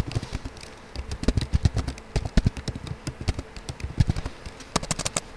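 Typing on a computer keyboard: a quick, irregular run of key clicks starting about a second in.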